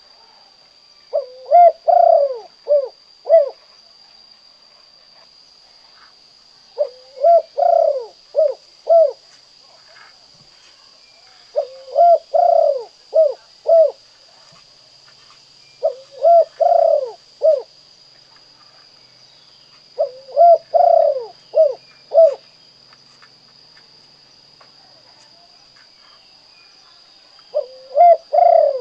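Spotted dove cooing its 'kuk 2' song: a phrase of a short lead-in note, a long coo and two short clipped coos, repeated six times about every four to five seconds, the last cut off at the end. A steady high whine runs underneath.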